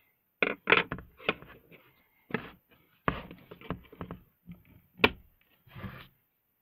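Wooden jigsaw puzzle board and its wooden pieces knocking and clattering as they are handled, a string of irregular knocks with rubbing between them. The sharpest knocks come just after the start and about five seconds in.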